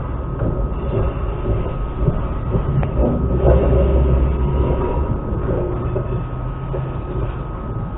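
Electric commuter train running at speed, heard from inside the carriage: a steady rumble of wheels and running gear that swells louder about three to five seconds in, with a faint steady high tone throughout.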